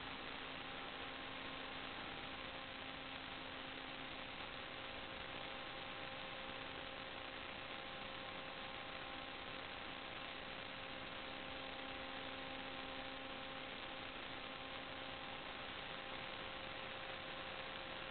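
Steady electrical hum of several tones over an even hiss, the noise of a sewer inspection camera's recording system.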